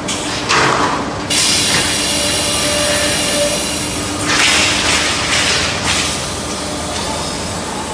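Welded pipe roll forming mill running: a steady machine hum with a constant tone underneath. Loud high rushing noise comes in about half a second in, holds for several seconds, and eases off after about six seconds.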